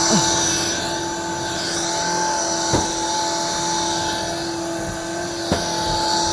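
Shark cordless stick vacuum cleaner running with a steady motor whine and rushing air hiss. Two sharp knocks come partway through, about three seconds apart.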